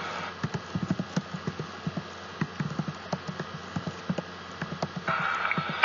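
Police radio scanner static: a steady hiss crackling with irregular, sharp low clicks and pops, and a brief louder burst of static about five seconds in.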